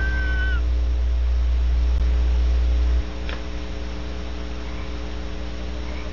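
Steady electrical mains hum on the recording, dropping in level about three seconds in. A high, steady call fades out in the first half second.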